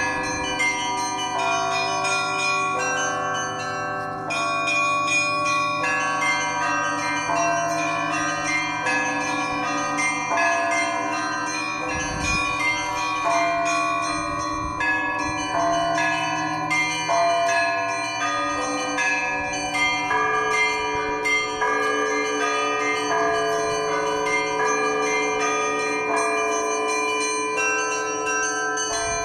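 Church bells ringing together: many bells of different pitches are struck in quick succession, and their tones overlap and ring on in a continuous peal.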